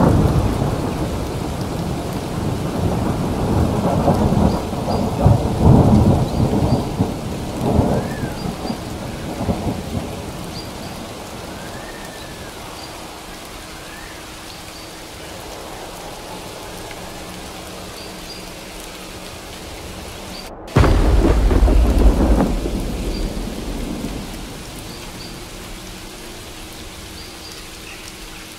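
Thunderstorm: steady rain with rolling thunder, heavy for the first several seconds and then easing to rain alone. About twenty seconds in, just after a brief dropout, a loud thunder rumble starts abruptly and dies away over a few seconds.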